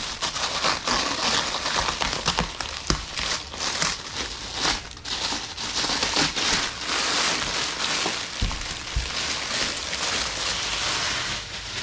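Thin plastic bag crinkling and rustling as it is pulled off a helmet by hand, with many small crackles throughout and a couple of dull knocks about eight and a half seconds in.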